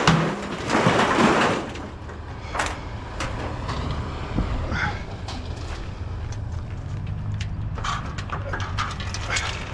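Loose scrap metal crashing and clattering as it is thrown off, then scattered knocks and clanks, over the steady low hum of an engine running.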